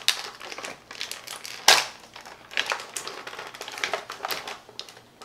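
Clear plastic packaging crinkling and crackling irregularly as it is handled and pulled open to unwrap a toy figure, with one loud crackle a little under two seconds in.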